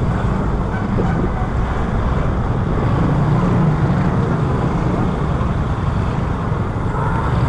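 Motorcycle engines running steadily in slow street traffic, heard from on board a moving motorcycle, with road noise around them.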